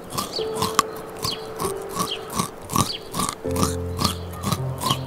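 A nutria chewing a piece of carrot: short crunching bites about two to three times a second, over soft music with long held notes.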